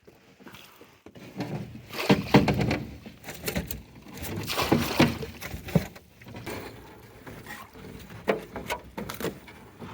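A hoop net being hauled over the side into the boat: a rapid run of knocks and clatters against the hull with splashing water, busiest from about two to six seconds in, then lighter knocks.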